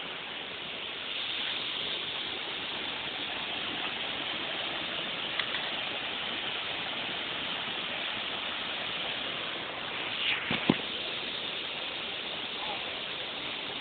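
Waterfall rushing, a steady roar of falling water, with one brief knock about ten and a half seconds in.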